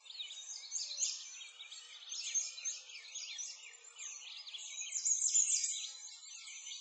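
A dense chorus of many small songbirds chirping and twittering, with quick high calls overlapping without a break.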